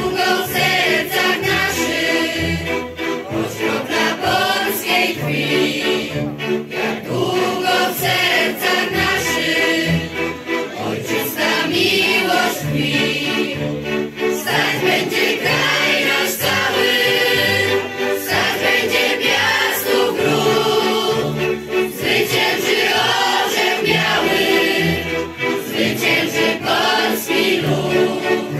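Mixed choir of children and adults singing a Polish patriotic song in unison, accompanied by a Górale highland fiddle band over a regular pulse of low bass notes.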